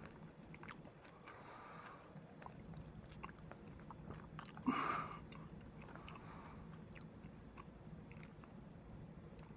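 A person chewing a mouthful of curry, with soft scattered mouth clicks. A short, louder mouth noise comes about five seconds in.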